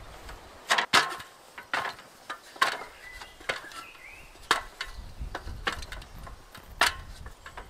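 Aluminium stepladder being set against a wooden shed and climbed: about a dozen sharp, irregularly spaced metallic clanks and knocks from the ladder's frame and steps.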